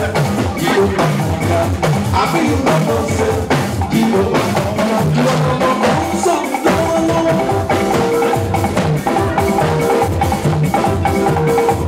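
Dance music with busy drumming and a repeating melodic line over it; the bass drops out briefly about six seconds in, then comes back.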